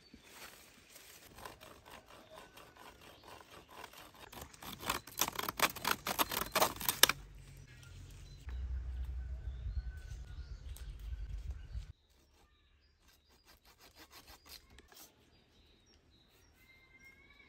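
Leafy branches being cut from a bush with a curved hand blade: rustling leaves and rapid cracks of twigs being hacked and snapped, heaviest a few seconds in. A low rumble follows for a few seconds, and there are a few faint bird chirps near the end.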